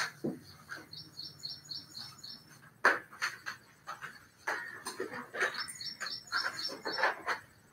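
A bird chirping in two runs of short, high, evenly spaced chirps, about four a second. Scattered clicks and knocks are mixed in, the loudest about three seconds in.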